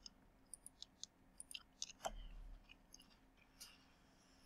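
Faint, irregular clicks of a computer being operated by hand, with a dull low thump about two seconds in.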